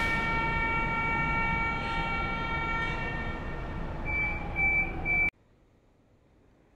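Lisbon Metro train heard from inside the carriage: a rumbling ride with a whine of several steady tones, one of them falling in pitch, then three short high beeps between about four and five seconds in. The sound cuts off suddenly a little after five seconds to near silence.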